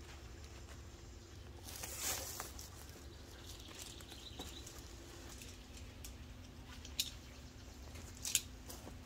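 Footsteps and rustling in dry leaf litter, with a burst of rustling about two seconds in and a few sharp clicks near the end.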